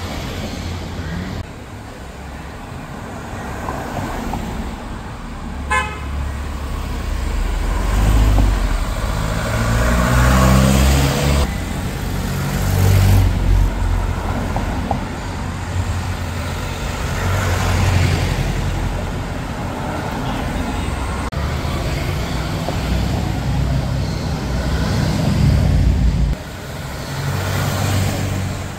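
Car engines running as cars drive past in turn, swelling and fading, with one engine revving up about ten seconds in. A short car horn toot sounds about six seconds in.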